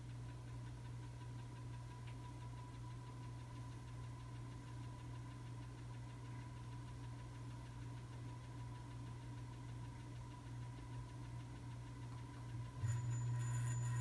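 Casablanca Aris ceiling fan motor running without its blades: a steady low hum with a faint higher tone. Near the end the hum steps up suddenly and gets louder, with a hiss added above it.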